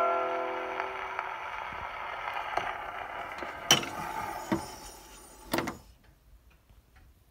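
Victrola VV-S-405 phonograph playing a Decca 78 rpm record: the song's last held chord dies away in the first second or so, leaving surface hiss that fades. Three sharp knocks come about a second apart, the last ending the sound abruptly, after which only faint ticks remain.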